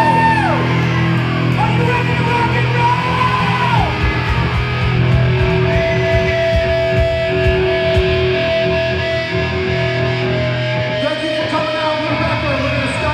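Live hard rock band playing loud through stage amplification: distorted electric guitar, bass and drums. A voice holds long bending notes over it in the first four seconds, and the music switches abruptly to a different passage about eleven seconds in.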